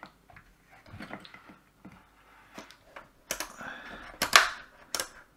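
Handling noise on a workbench: small clicks, taps and rustles of test probes and a circuit board being moved, with louder clattering knocks in the second half.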